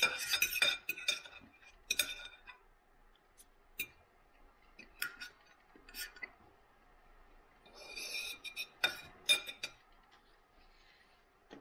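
Knife and fork clinking and scraping against a dinner plate while cutting up sausage and potatoes: a flurry of clinks at the start, a few single clinks, then another flurry about eight seconds in.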